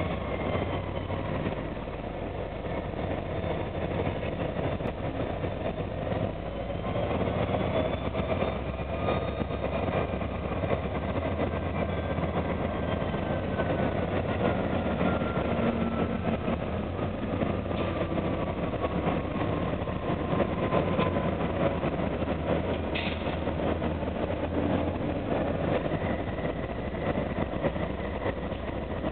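Diesel engines of a CN lashup of EMD SD40-2W and GE C44-9W six-axle diesel-electric locomotives running steadily as the units roll slowly past pushing a freight train. There is a low hum, with faint tones that slowly fall in pitch partway through.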